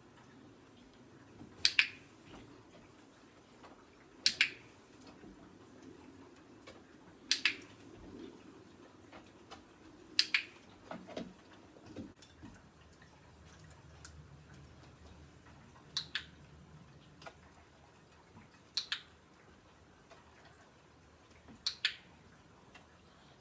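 Handheld dog-training clicker pressed seven times, about every three seconds, each a sharp double click.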